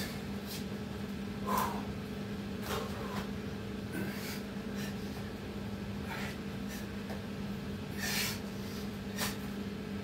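A man breathing hard in short, sharp exhales every second or two, winded from doing burpees and push-ups, over a steady low hum.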